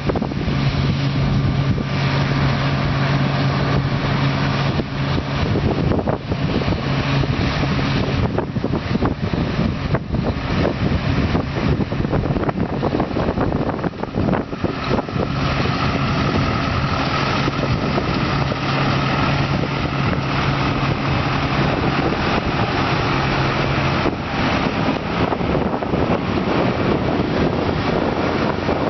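Harvest machinery engine running steadily, with a low hum that grows stronger and weaker at times, and wind noise on the microphone.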